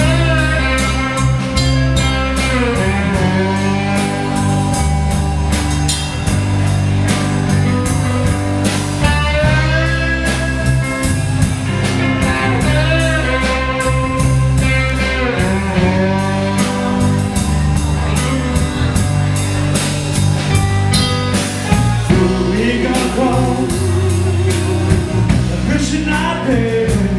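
A live blues band playing through the PA: electric guitars, bass and drums, with a lead line whose notes bend and waver over a steady low groove.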